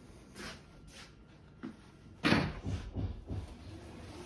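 A short scraping rush about two seconds in, followed by a few quick light knocks.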